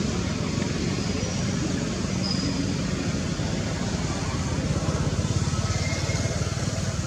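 Steady low rumbling outdoor background noise with no clear breaks, and a few faint short high tones over it.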